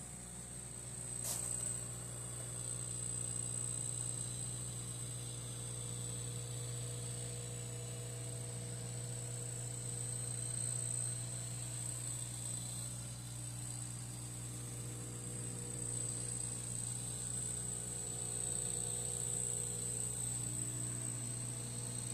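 Steady electric hum of the aquarium filter's water pump, with a constant high-pitched whine above it and a single sharp click about a second in.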